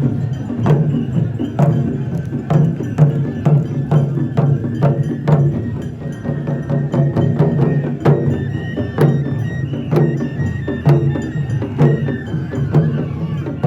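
Traditional Japanese festival music with a steady beat of sharp percussive clacks, about two a second, over a continuous low drone.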